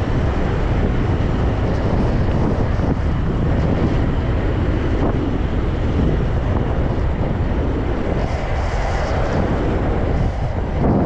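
Wind rushing and buffeting over the microphone of a rider on the move, a steady loud roar heaviest in the low end.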